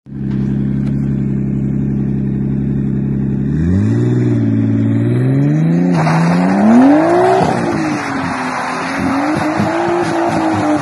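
Car engine idling steadily, then revving from about four seconds in, its pitch rising and falling and peaking around seven seconds before settling into uneven revs. A loud rushing hiss joins the engine from about six seconds in.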